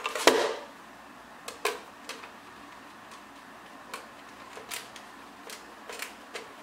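A knock about a quarter second in, then scattered light clicks and taps as a soldering station unit and its parts are handled and set down.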